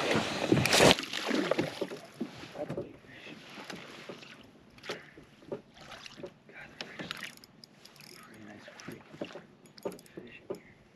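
Water lapping and splashing against a plastic fishing kayak's hull, with scattered light knocks and clicks of gear on the boat. A louder burst of handling noise fills the first second.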